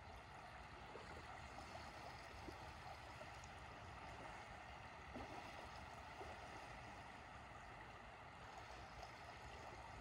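Calm sea water lapping faintly at a sandy shore, with small trickling ripples over a steady soft hiss.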